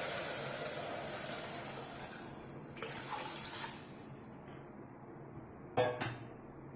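Tamarind water poured from a bowl into a pressure cooker, a splashing pour that fades out over about four seconds. Two short knocks come near the end.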